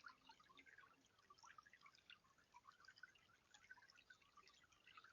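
Faint water trickling and dripping in a tiered bird bath, a steady patter of many small drops.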